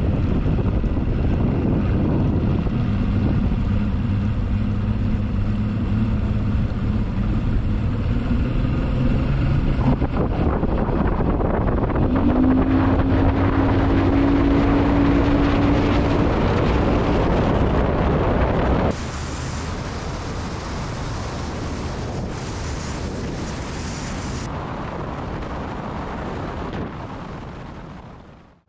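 Bass boat's outboard motor running underway, with heavy wind buffeting the microphone and water rushing past the hull; about twelve seconds in, the engine note rises as the boat speeds up. Past the middle the sound drops abruptly to quieter wind and water noise, then fades out at the end.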